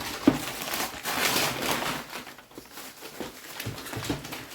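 Keyboard packaging being handled and unpacked: a sharp knock about a quarter second in, then a rustle for about a second, then scattered light taps and scrapes.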